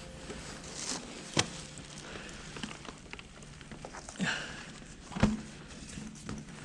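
A few scattered knocks and rustles over steady low background noise, the loudest a sharp knock about five seconds in.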